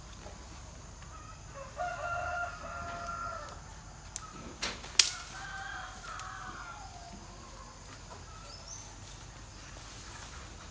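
A rooster crowing twice, each crow a long held call, the second falling away at its end. Between the crows come three sharp snaps or clicks, the last one the loudest sound.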